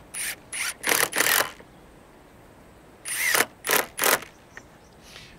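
Power drill driving screws into a steel strap hinge on a wooden gate rail, run in short trigger bursts: a group near the start and another about three seconds in, with a pause between.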